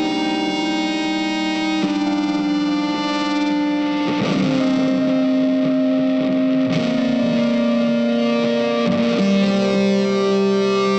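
Background music: sustained electric guitar notes through distortion, changing pitch every second or two.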